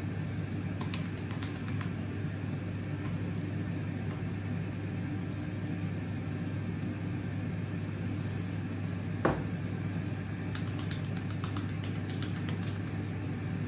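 Steady hum of a Cosori dual-basket air fryer's fan running as it preheats, with faint light ticks and one short knock about nine seconds in.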